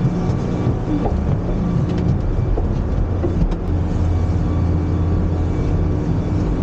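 Sightseeing bus driving, heard from inside the cabin: a steady low engine hum and road noise, with a few light rattles.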